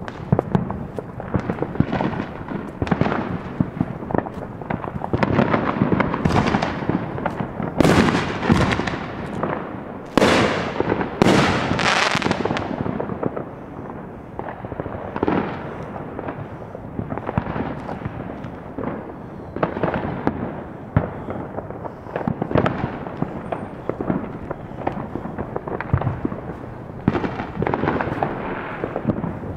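Neighbourhood consumer fireworks going off all around: a near-continuous barrage of bangs and crackles, each one trailing off. It is densest and loudest about a third of the way in, then thins to scattered booms.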